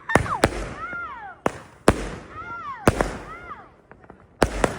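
Fireworks going off: a string of sharp bangs, about seven in all, some coming in quick pairs. Rising-and-falling whistles sound between the bangs.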